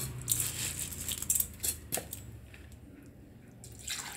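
Handfuls of wet soaked rice dropping and rustling into a stainless-steel mixer jar, with a few light clicks of grains on the metal in the first two seconds. Near the end, jaggery syrup starts pouring into the jar.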